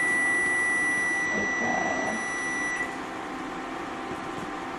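Timer alarm sounding one steady high-pitched tone for about three seconds, then stopping: the 3-minute frying time is up.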